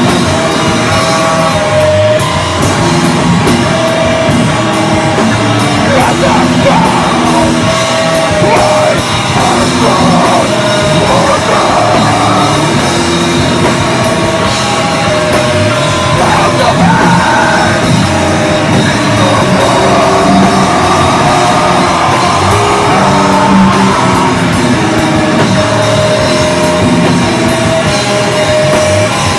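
Hardcore punk band playing live and loud: drum kit and amplified guitar, with a vocalist yelling over the music in stretches.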